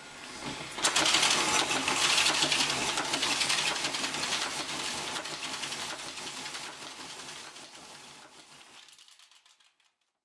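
Player piano mechanism rewinding its paper roll after the song ends. A rapid, even mechanical rattle starts about a second in and fades away gradually.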